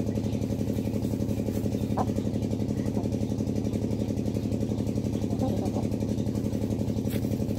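An engine running steadily at a constant speed, with an even, fast pulsing.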